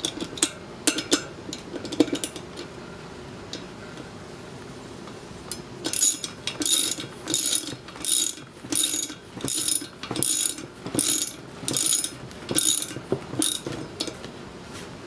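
Socket ratchet wrench clicking as it drives bolts home: a few scattered clicks at first, then from about six seconds in an even run of about a dozen ratcheting strokes, roughly three every two seconds.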